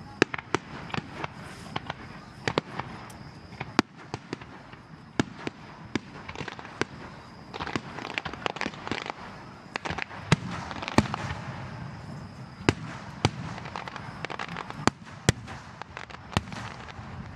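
Aerial fireworks bursting: many sharp bangs and cracks in quick, irregular succession over a continuous crackle, busiest about ten seconds in.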